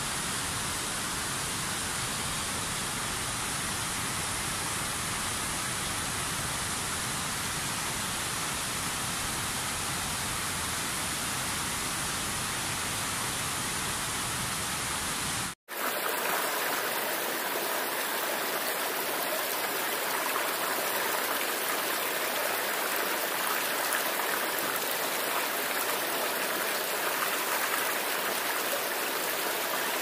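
Steady rush of a waterfall. About halfway through the sound cuts out for an instant and comes back as a different, brighter rush of water with much less low rumble.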